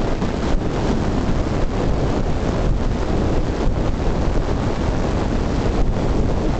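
Wind buffeting the microphone of a camera moving along a road: a steady rushing noise, heaviest in the low end.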